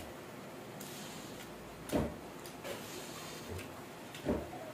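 Close-miked eating sounds of a man chewing spicy fried fish ball, with a soft low thud about two seconds in and another near the end, and a few faint clicks.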